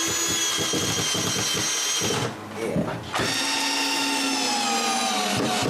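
Power drill driving screws, in two long runs with a short pause between them; in the second run the motor's pitch slowly falls.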